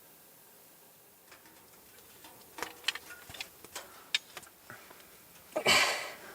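Crinkling and clicking of a nylon sleeping bag as someone wriggles out of it, ending in a louder rush of fabric noise about five and a half seconds in.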